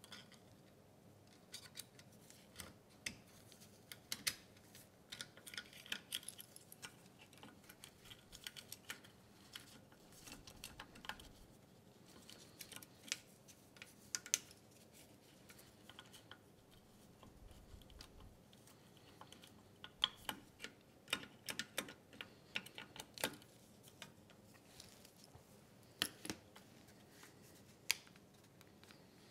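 Scattered light metallic clicks and clinks at irregular intervals from small engine parts being handled: the cam, its shaft and the timing chain being worked loose in a Subaru EX30 overhead-cam head.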